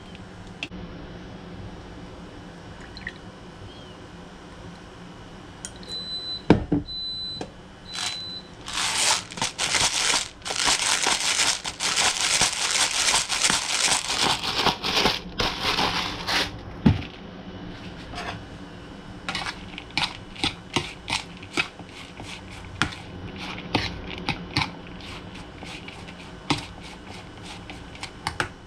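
A few short high beeps, then a pepper mill grinding black pepper in several seconds of dense gritty crackling. After that a fork clicks and scrapes over and over against a plastic bowl as the seasoned greens are tossed.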